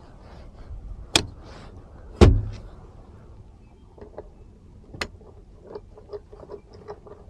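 A car part being worked into place by hand, not yet lined up: two sharp knocks about a second apart, the second the loudest with a dull thump, another knock around five seconds in, then a run of light clicks.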